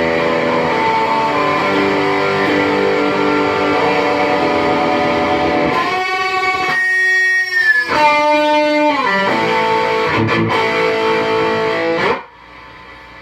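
Stratocaster-style electric guitar on its bridge single-coil pickup, played through an amplifier: sustained ringing chords, then bent notes and short phrases from about six seconds in, cut off suddenly by muting near the end.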